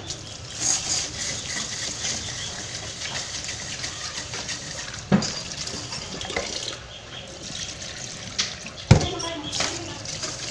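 Tap water running into a rice-cooker pot in a stainless-steel sink while a hand swishes and rubs the contents under the stream. Two sharp knocks stand out, one about halfway through and a louder one near the end.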